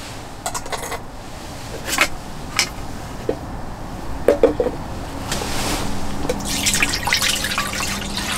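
Metal clinks of utensils and a mess tin's lid being handled. Then, from about five seconds in, beef-bone soup is poured from a pouch into the metal mess tin with a steady liquid splashing.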